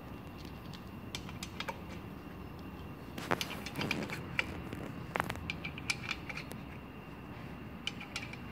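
Short steel sleeves clinking together in a gloved hand and being set into holes in a Thermo King engine block's deck: scattered light metallic clicks, busiest in the middle, over a steady low hum.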